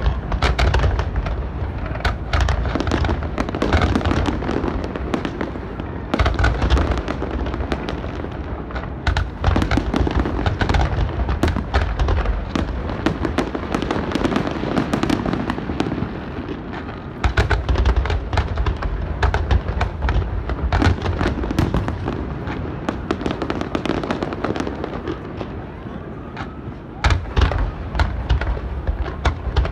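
Large aerial fireworks display: a continuous barrage of booming shell bursts and crackling, with deep rumbling echoes between the bangs. The booms ease for a few seconds near the end, then a new run of loud bursts starts.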